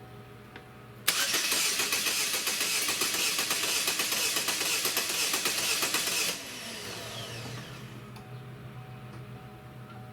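Starter motor cranking the 2.4 L Ecotec four-cylinder with the accelerator floored in clear-flood mode, a loud rapid rhythmic churning for about five seconds. It stops with a falling whine as it spins down, leaving a lower steady engine hum.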